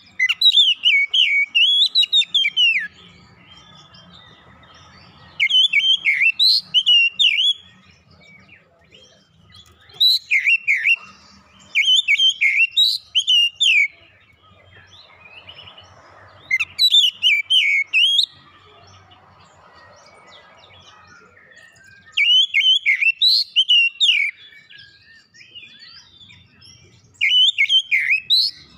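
Oriental magpie-robin (kacer) singing: seven loud phrases of quick, rising and falling whistled notes, each one to three seconds long, with short pauses of a few seconds between them.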